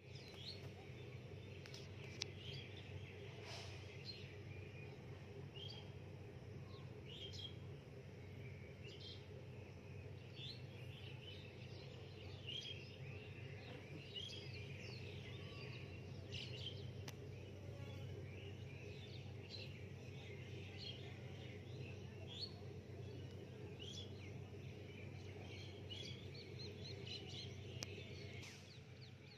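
Small birds chirping repeatedly, short calls every second or so, over a steady low background hum.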